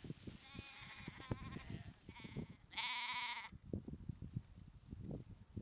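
Lambs bleating: a faint bleat in the first couple of seconds, then one loud, wavering bleat about three seconds in. Irregular dull thumps run underneath.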